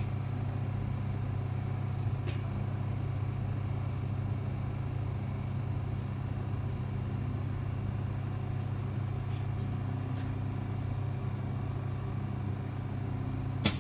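LCD screen laminating machine running its vacuum laminating cycle with a steady low hum, its vacuum pump drawing down the chamber. A few faint clicks come through, and a sharp click near the end.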